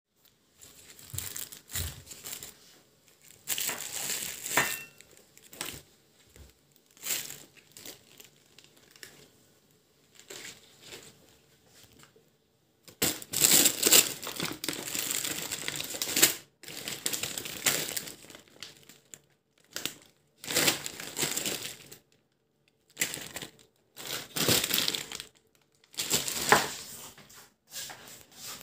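Plastic produce bags crinkling and rustling in irregular bursts as bagged vegetables are picked up and set down.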